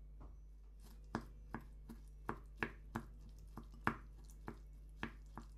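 Wooden spoon stirring thick tartar sauce in a ceramic bowl, knocking against the bowl: about a dozen sharp clicks, two or three a second, starting about a second in.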